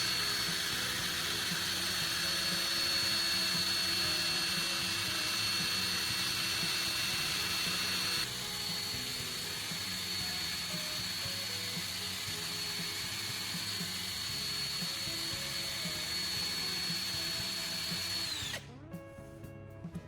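Drill running at high speed, spinning a ceramic spark-plug insulator against a kitchen knife's edge: a steady high whine with a grinding hiss. The sound drops in level about eight seconds in. Near the end the whine falls in pitch as the drill spins down and stops. Soft background music plays underneath.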